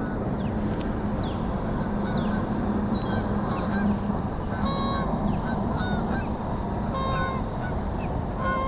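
Geese honking, a series of short calls that come more often in the second half, over a steady low hum and a constant rushing noise.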